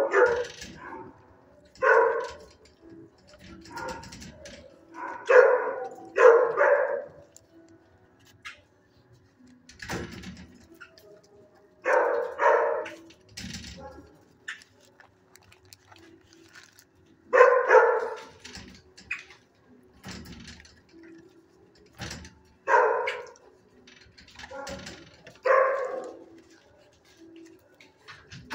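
Shelter dogs barking in kennels: short single and paired barks every few seconds, with pauses between.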